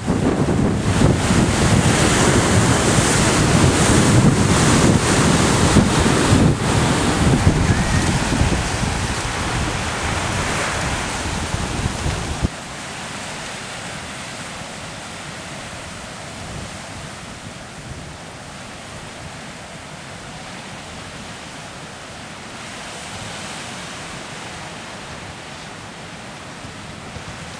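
Sea surf rushing in over rocks, with strong wind buffeting the microphone. About twelve seconds in it cuts abruptly to a quieter, steady wash of small waves breaking on a sandy beach.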